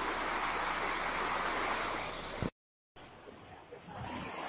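Floodwater rushing in a steady, even noise that cuts off abruptly about two and a half seconds in. After a brief silence, a quieter watery noise rises near the end.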